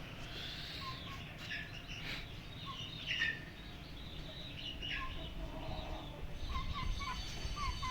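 Birds chirping in short, scattered calls over a low rumble of wind on the microphone.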